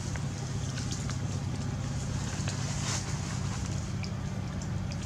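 Steady low rumble of wind on the microphone, with scattered faint ticks and rustles.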